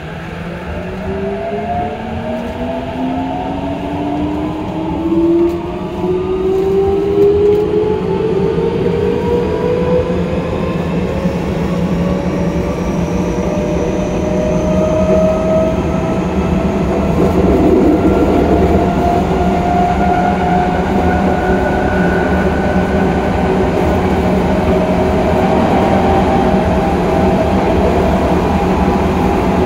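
Tokyo Metro 08 series electric train accelerating, heard at the gangway between cars: the inverter-driven traction motors give several whining tones that rise steadily in pitch over the steady rumble of wheels on rail, growing louder as the train gathers speed.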